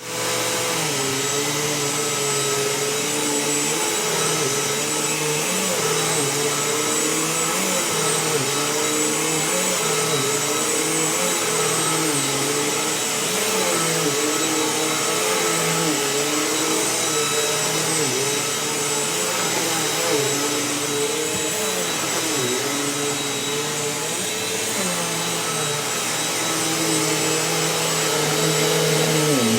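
Vacuum cleaner running steadily, its motor pitch dipping and recovering again and again as it is worked.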